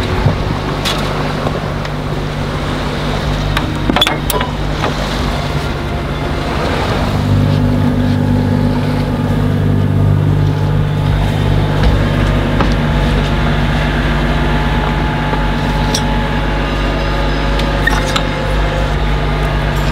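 Bavaria 34 sailing yacht's inboard diesel engine running steadily under way, a low drone that gets a little louder about seven seconds in. A few sharp clicks and knocks sound over it.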